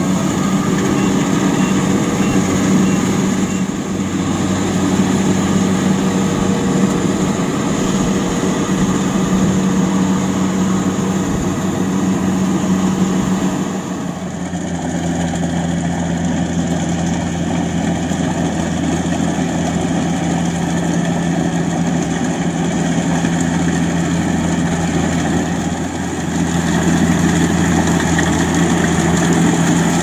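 Kubota DC-70 combine harvester running steadily while cutting rice: a continuous diesel engine hum with the mechanical noise of its cutting and threshing gear. The tone changes abruptly about halfway through.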